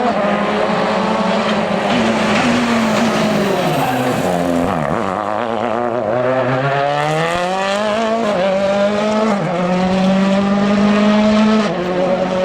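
A rally car's engine at full effort on a special stage: the revs drop about four seconds in as it slows, then climb through the gears with short dips at each upshift, and the sound falls away sharply near the end.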